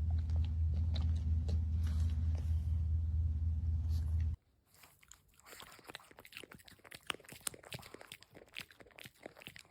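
A steady low hum, the loudest sound, cuts off abruptly a little over four seconds in. Then comes faint, scattered crunching and crackling: a puppy chewing on something.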